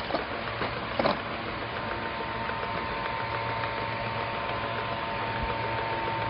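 Box corner-sealing and labeling machine running with a steady whine and hum, with a few short knocks as cardboard boxes are fed through, the loudest about a second in.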